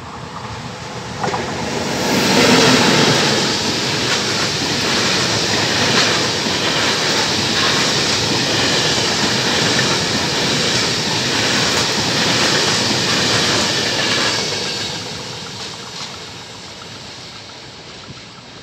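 Freight train hauled by an E652 electric locomotive passing fast, arriving with a sudden rise about a second in. Its flat wagons loaded with rails rumble and clack steadily over the rail joints, then the sound fades as the tail of the train draws away.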